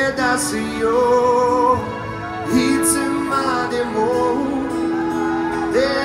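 Live band performing a song: a singer's sustained, gliding melody over strummed acoustic guitars and the band, played through the stage PA at an open-air concert.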